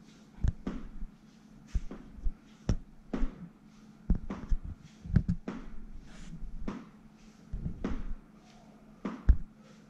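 Irregular soft thumps of feet and knees moving on a gym mat and rubber floor during a forearm-plank knee-to-elbow exercise, mixed with short, hard breaths.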